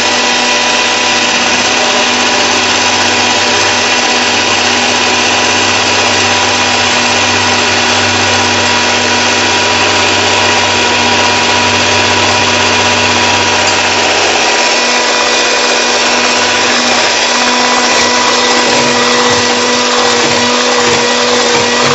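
Electric hand mixer running steadily at a constant speed, its beaters whipping cream in a bowl.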